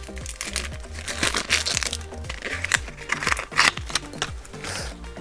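Crinkly plastic blind-bag packaging rustling and crackling as it is torn open and handled, over background music with a steady bass line.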